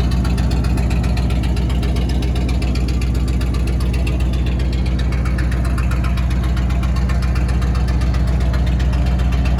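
1946 Ford truck's flathead V8 idling steadily.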